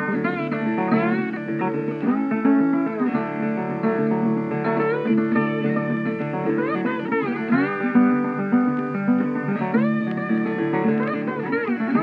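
Background music led by plucked guitar, with a gliding melody over it; no engine or road sound comes through.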